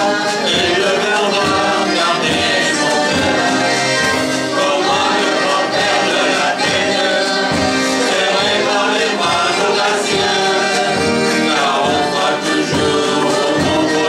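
A group of voices singing a song in unison, accompanied live by accordion, acoustic guitar and drums with a steady beat.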